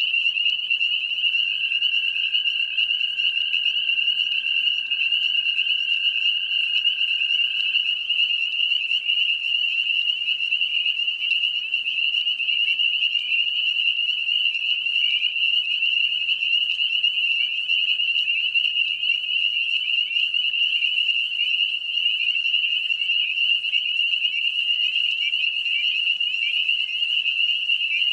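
Chorus of spring peepers: many males' high breeding-season peeps overlapping into one steady, unbroken high-pitched chorus.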